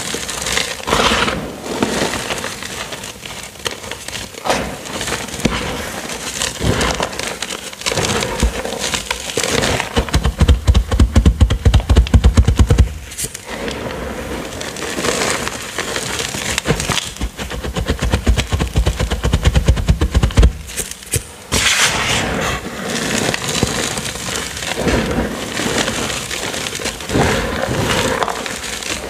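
Hands crushing and squeezing crumbled purple gym chalk mixed with cornstarch: a dense run of crunching and crackling. There are two louder stretches of rapid low crunching, about ten seconds in and again from about seventeen to twenty seconds.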